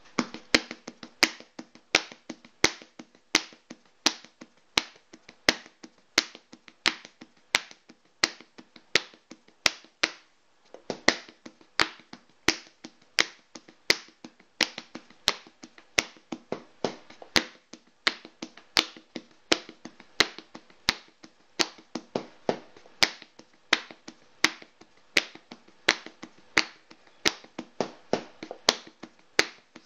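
A homemade beat of sharp clicks and taps in a steady rhythm, with louder accents under a second apart and lighter strokes between, over a faint steady hum. The beat thins briefly about ten seconds in.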